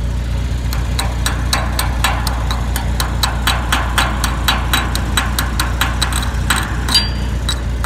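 Chipping hammer tapping repeatedly on a fresh weld bead on a steel axle sleeve, knocking off slag at about four to five sharp strikes a second. An engine idles steadily underneath.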